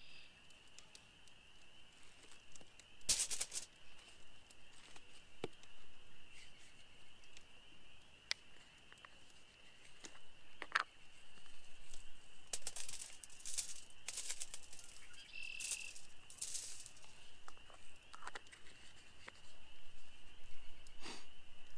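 Hand food-prep noises: a salmon fillet's plastic packaging and aluminium foil crinkling and tapping, then a small hand spice grinder twisted over the fish in several rasping bursts in the second half. A faint, steady high-pitched whine runs underneath.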